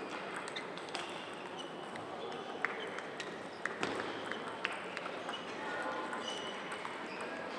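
Celluloid-style table tennis balls clicking sharply off bats and tables, irregular single ticks that come thicker from about two and a half seconds in as a rally gets under way. A murmur of voices runs underneath.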